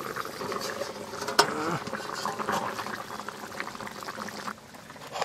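Curry simmering in an iron kadai under a steel plate lid, with a steady crackling bubble. About a second and a half in comes a sharp metallic clink that rings briefly. Near the end the lid is lifted off and the bubbling drops quieter.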